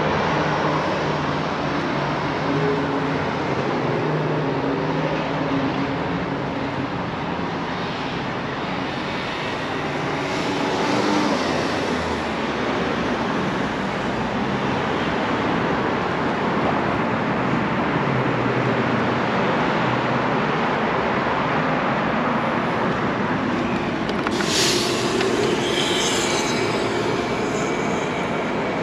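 Steady outdoor rumble and hiss of street traffic, with a brief high hiss or squeal from a passing vehicle about 24 to 27 seconds in.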